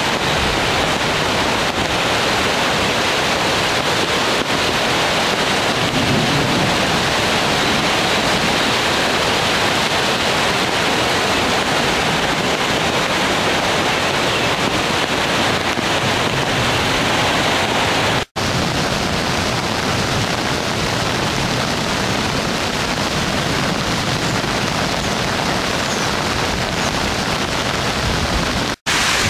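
Swollen floodwater creek rushing in a steady, loud wash of water noise. It breaks off for an instant twice.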